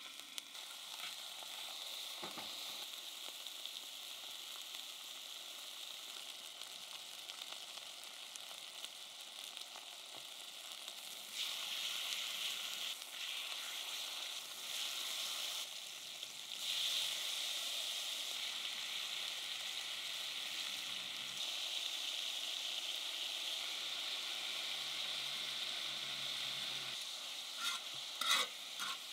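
Pork neck sizzling and frying on a cast-iron pot-lid griddle: a steady frying hiss that steps up louder about a third of the way in and again past the middle as more meat cooks. Near the end, a few sharp clicks as metal tongs stir the cut pieces on the griddle.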